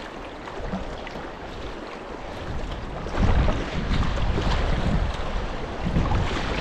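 River water rushing and splashing around a kayak on a shallow, rocky river. Wind buffets the microphone, louder from about three seconds in.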